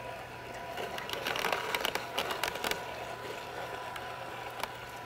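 Vertical slow juicer running: a steady motor hum under irregular cracking and crunching as the auger crushes pieces of apple and butternut squash, the crunching thickest in the middle.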